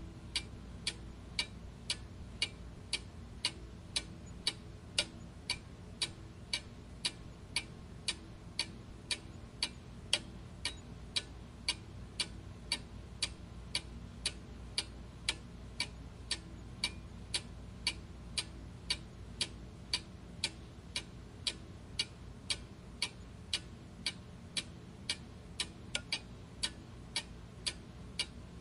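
Mechanical clock ticking at a steady, even pace, about two ticks a second.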